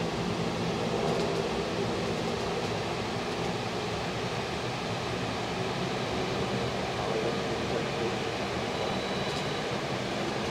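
Steady, distant rumble of a four-engined Airbus A340 jet airliner passing high overhead.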